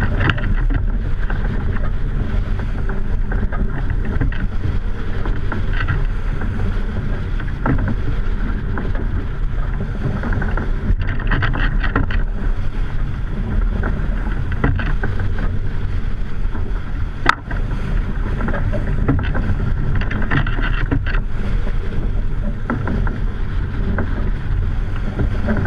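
Wind buffeting the microphone of a camera mounted on a heeled racing sailboat, over the rush of water streaming past the hull. A single sharp click about two thirds of the way through.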